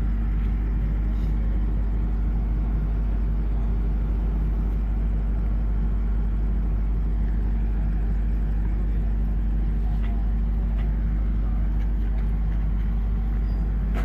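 Steady low engine-like rumble with a constant hum, unchanging throughout.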